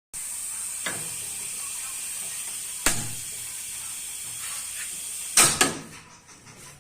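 A steady high hiss with sharp mechanical clicks: one about a second in, one near three seconds, and two close together near the end, after which the hiss stops.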